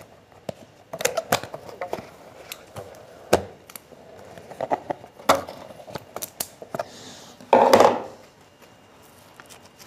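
Rustling and light clicks of a disposable N95 respirator and its elastic straps being pulled over the head and pressed onto the face, with one louder rustle of about half a second near the end.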